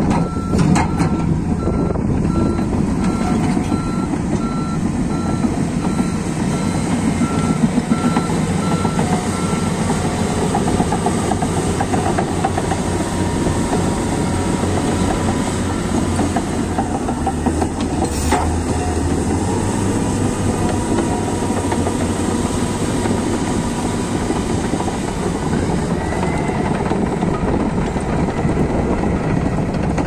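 Komatsu D155A bulldozer running under load, its diesel engine working and steel tracks clanking as it pushes and levels dirt. A reversing alarm beeps steadily for about the first ten seconds, and there is a single sharp knock around eighteen seconds in.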